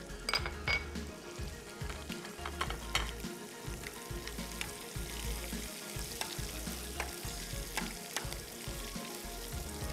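Curry leaves and whole dried red chillies sizzling in hot oil with garlic for a tadka: a steady frying hiss with sharp crackling pops, several in the first second and then scattered.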